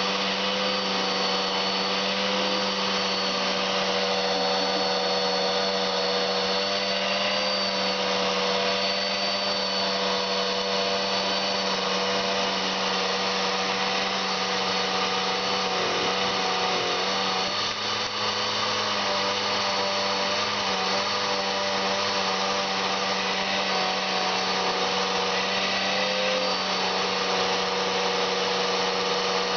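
Vacuum cleaner running steadily, its motor whine wavering briefly in pitch a little past halfway.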